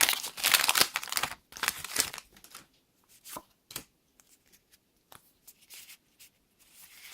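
Foil booster-pack wrapper crinkling and tearing for about two seconds, then a few light taps and flicks of trading cards being handled, with a faint rustle near the end.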